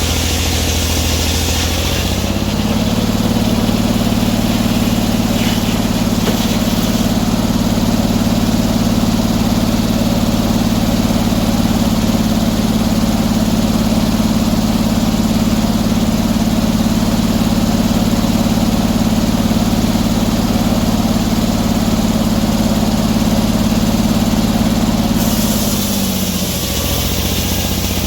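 Sawmill engine speeding up from idle about two seconds in and running steadily at higher speed, then dropping back to idle near the end.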